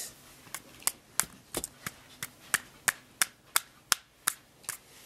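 Sellotape-reinforced Lego speedboat model being banged repeatedly, a string of sharp plastic knocks about three a second, as a test that it can take impact.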